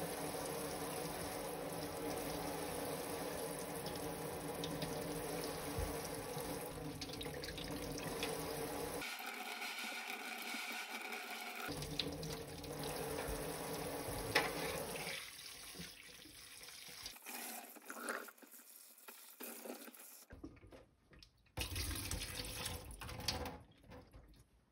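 Kitchen tap running into a stainless steel sink, the stream splashing over strawberries on a plate as they are rinsed by hand. The flow is steady for about the first fifteen seconds, then quieter and broken, with small knocks and splashes as the plate is handled.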